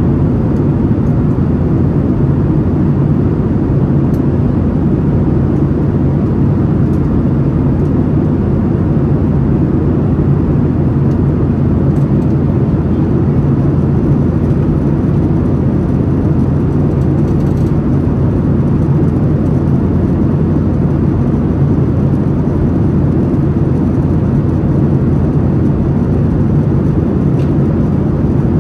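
Jet airliner cabin noise in flight: a steady, low-pitched rush of engine and airflow noise that does not change.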